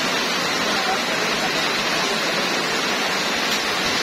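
Heavy rain pouring steadily onto puddled ground: a dense, even wash of drops splashing into standing water, with no letup.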